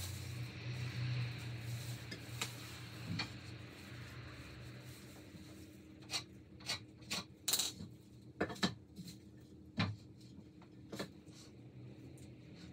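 Light clicks and knocks from handling a wooden board and a marking pen, a run of about eight sharp taps past the middle and one more near the end, over a faint low hum.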